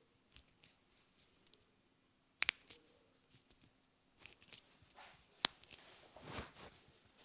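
Sharp cracks and slaps of a barber's hands during a head and neck massage: a quick double crack about two and a half seconds in, a single crack about five and a half seconds in, and a duller thump a second later, with faint rubbing and ticks between.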